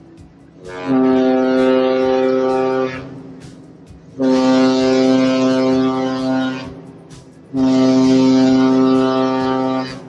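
Ship's horn of the cruise liner MS Regent Sea sounding three long, steady blasts, each about two to two and a half seconds, with a short gap between them.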